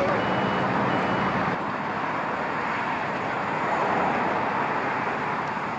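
Heavy diesel engines of a mobile crane and a low-loader truck running steadily.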